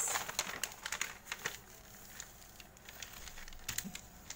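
A sheet of paper being handled and folded in half by hand: a quick run of crisp crackles and taps in the first second and a half, then scattered soft ticks.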